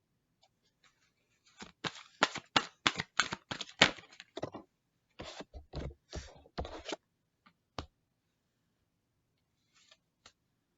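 Tarot cards being shuffled by hand: a quick run of papery snaps and slaps, a short pause, then a second, shorter run, with a couple of faint clicks near the end.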